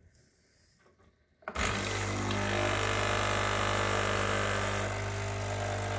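A Philips Senseo pad coffee machine's pump switches on suddenly about a second and a half in and runs with a steady buzzing hum and hiss, pushing hot water through the coffee pad as brewing begins.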